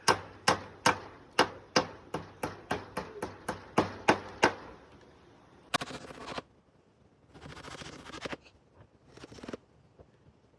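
Hammer blows at about three a second, some fourteen strikes in a row, each ringing briefly; then three short rasping scrapes.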